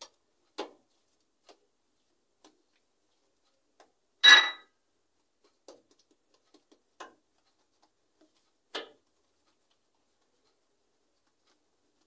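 Soft, scattered taps and pats of hands pressing and spreading oiled malwi dough on a marble countertop, with one sharp, ringing clink about four seconds in.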